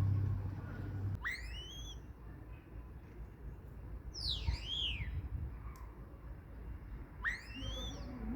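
Common starling giving three clear whistled calls, each a glide that rises and bends back down, about three seconds apart. A low hum underneath stops about a second in.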